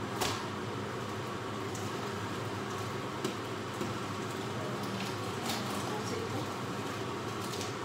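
Steady hum of a kitchen range-hood extractor fan, with a few light clicks and knocks of things being handled on the counter.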